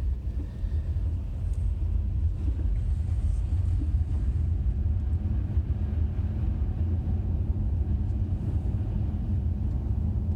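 2017 Honda Accord V6 driving, heard from inside the cabin: a steady low engine and road rumble that builds slightly over the first couple of seconds.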